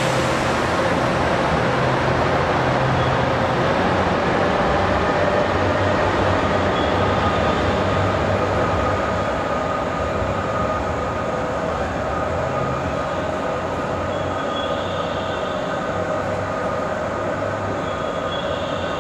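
JR Shikoku 2700 series diesel express train pulling away under power, its engines and running gear a steady rumble with a faint whine that slowly fades after a few seconds as the train draws off.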